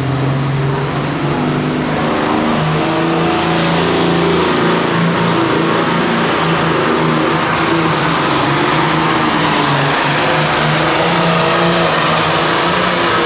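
John Deere 4450 pro farm pulling tractor's diesel engine running hard at full throttle under pulling load. A high whine climbs steeply in pitch about two seconds in and then holds over the engine.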